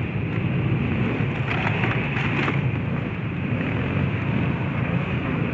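Dirt bike engine running steadily at low revs.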